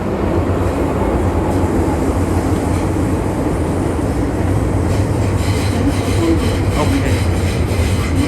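Inside an underground metro train running between stations: a steady, loud rumble of wheels and running gear, with a quicker rhythmic clatter coming in over the last few seconds.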